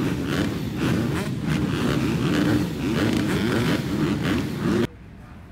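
A line of motocross bikes at the start gate, many engines running and blipping the throttle at once, their pitches rising and falling over one another. The sound cuts off suddenly about a second before the end.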